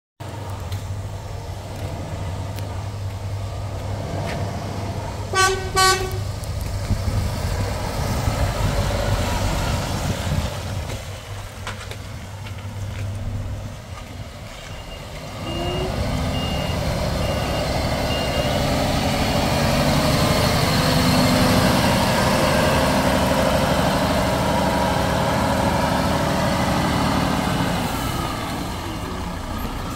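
Volvo FH 460 tractor unit's 13-litre six-cylinder diesel running as the truck drives up, getting louder from about fifteen seconds in as it nears. Two quick horn toots about five seconds in.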